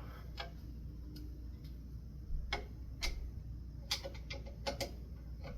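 Scattered sharp clicks and taps, irregular and mostly bunched in the second half, from hand work on a ceiling fan's metal and plastic parts, over a steady low room hum.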